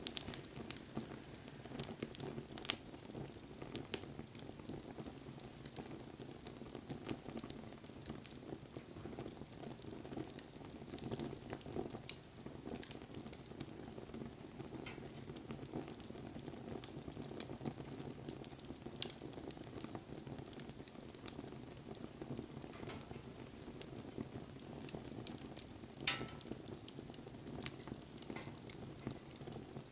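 Wood bonfire burning: a steady low rush of flame under continual fine crackling, with scattered sharp pops, one of the louder ones near the end.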